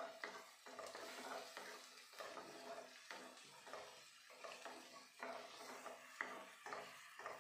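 Faint stirring of chopped onion and ginger-garlic frying in oil: a wooden spoon moves through a non-stick kadai in soft strokes about twice a second, over a light sizzle.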